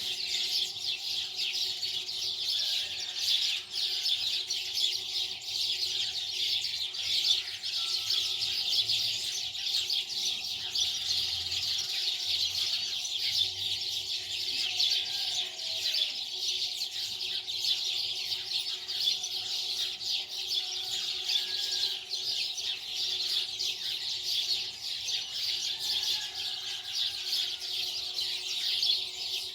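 Many birds chirping together in a dense, unbroken chorus.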